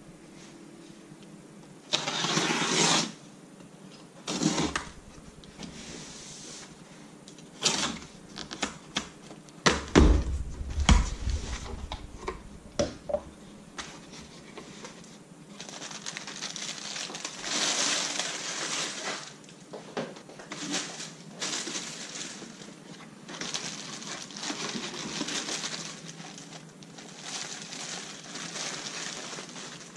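Cardboard box being opened by hand. A box cutter slices through packing tape in two strokes, then the box flaps are handled with clicks and a few heavy thumps, and from about halfway a plastic bag crinkles on and off as the packaged strap is lifted out.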